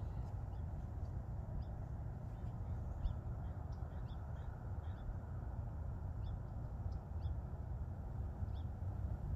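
Faint, short, high-pitched bird calls come about once a second, some in quick pairs, over a steady low rumble.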